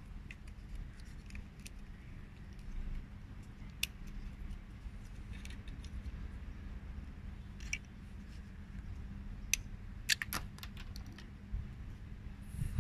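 Scattered small clicks and taps of laser-cut wooden puzzle parts being handled on a toy wooden ballista, with a quick run of clicks about ten seconds in. A steady low background rumble with a faint hum runs underneath.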